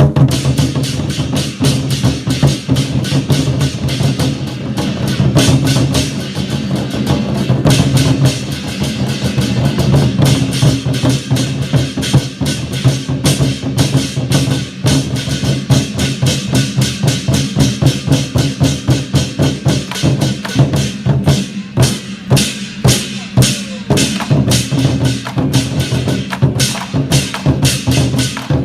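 Chinese war drums (zhangu) played by an ensemble in fast, dense, continuous beating, with sharp clicking strokes among the drum hits.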